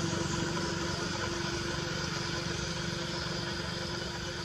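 A motor engine running steadily, slowly fading.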